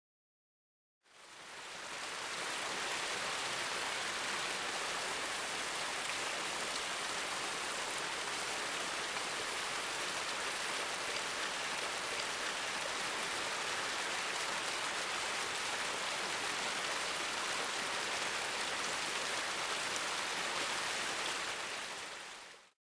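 A steady, even rushing hiss like heavy rain or falling water. It fades in about a second in and fades out near the end.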